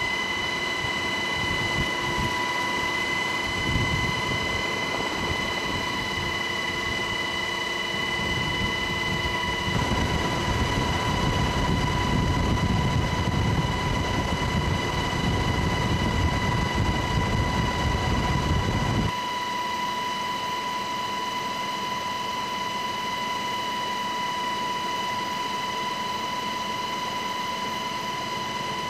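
Cabin noise of a UH-60 Black Hawk helicopter in flight: a steady high whine over a deep rotor and wind rumble. The rumble grows louder about ten seconds in and drops away suddenly near nineteen seconds, while the whine carries on.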